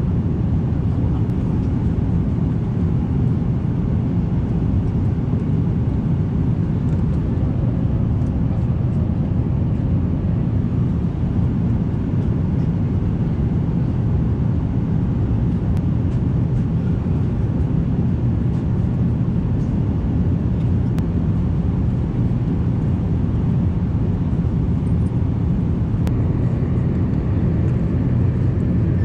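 Steady low rumble of an Airbus A350 airliner heard from inside the cabin: engine and airflow noise holding at an even level.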